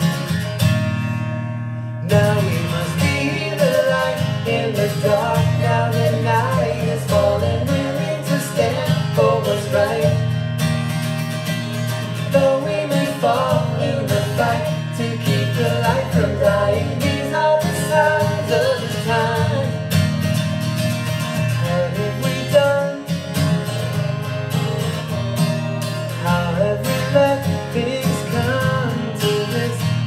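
Song with a strummed acoustic guitar and singing voices.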